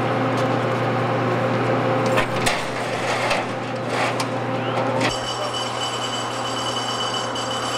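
Steady low mechanical hum with a few sharp knocks and clicks near the middle. About five seconds in the sound changes abruptly and a steady high-pitched whine comes in.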